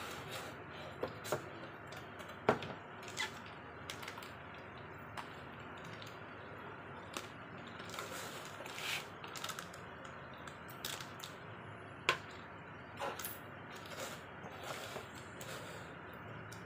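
Cardboard box and plastic packaging handled by hand: irregular rustling and crinkling with scattered sharp clicks and taps, as the box is slid out of its plastic sleeve and its cardboard flaps are opened. The loudest snaps come about two and a half seconds in and again about twelve seconds in.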